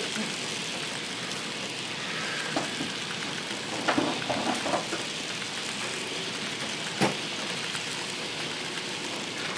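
N scale model freight train of hopper cars rolling past on the track: a steady light rattling hiss of small wheels on the rails, with a few short clicks, the sharpest about seven seconds in.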